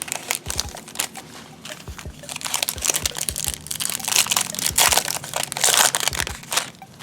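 Foil wrapper of a Topps Chrome football card pack crinkling as it is torn open and handled, loudest about four to six seconds in, with a few soft knocks.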